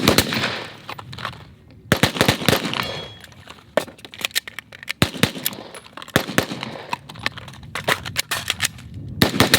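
Rapid gunfire from two shooters racing each other in a timed drill. Quick strings of overlapping shots with short gaps, densest near the start, around two to three seconds in, and again near the end.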